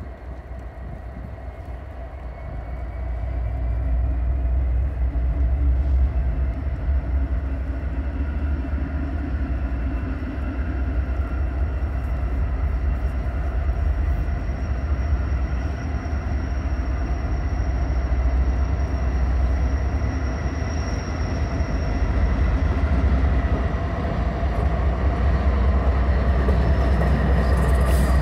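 Norfolk Southern diesel-electric freight locomotives approaching and passing close at low speed, their engines rumbling. The sound grows louder over the first few seconds and then holds steady, with a faint high whine above the rumble.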